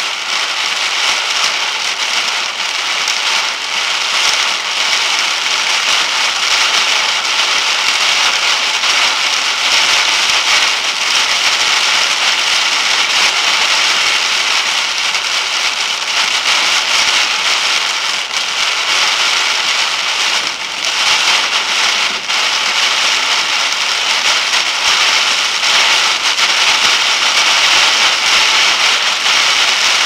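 Steady, loud hiss of 50–60 mph wind beating against a car, heard from inside the cabin, with scattered brief crackles.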